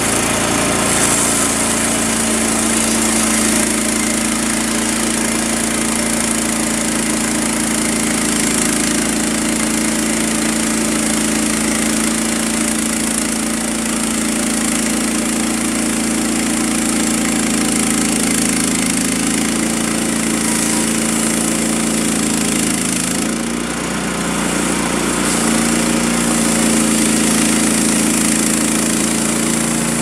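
Portable band sawmill's gasoline engine running at speed while the band blade is pushed through a cedar log. The engine note shifts and dips briefly about three-quarters of the way through.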